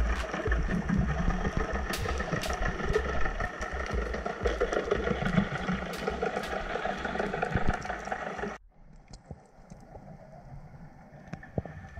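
Underwater recording of boat engines running, a steady drone and rumble with scattered sharp clicks. About eight and a half seconds in it cuts off suddenly to a faint hiss with a few clicks.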